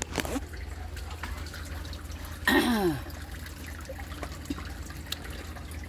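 Water trickling and dripping steadily, with one short falling voice-like sound about two and a half seconds in.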